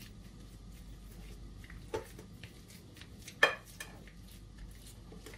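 Black masher working mashed potato in a glass bowl: soft squishing with a few light clicks, and two sharp knocks of the masher against the bowl, about two seconds in and, louder, about three and a half seconds in.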